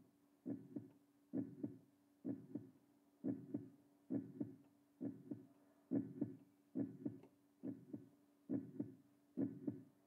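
Slow, steady heartbeat: a double thump (lub-dub) about once every 0.9 seconds over a faint steady hum.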